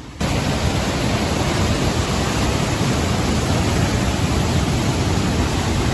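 Floodwater rushing, a loud, steady roar of a swollen river that starts abruptly just after the opening.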